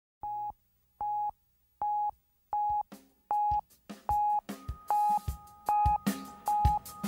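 Opening of an electronic music track: a short beep-like tone repeating about every 0.8 seconds and getting louder, with thumps, clicks and a second higher tone joining from about three seconds in, building toward a full drum beat.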